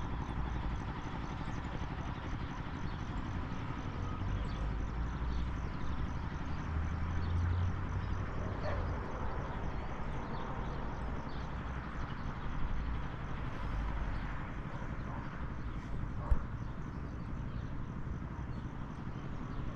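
Outdoor ambience on a walk: a steady low rumble with faint footsteps and light scattered ticks, and one sharp click about sixteen seconds in.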